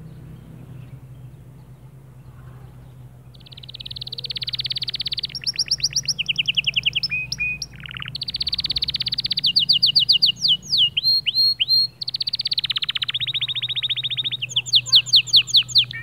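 Male canary singing: after a quiet start, about three and a half seconds in, it breaks into a long song of fast trills and rolls, each a run of rapidly repeated notes at a different pitch, with brief pauses between phrases.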